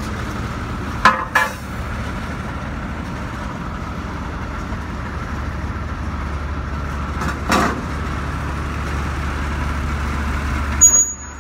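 Ford C-series E-One fire truck's diesel engine idling steadily, with a couple of short knocks, about a second in and again after seven seconds.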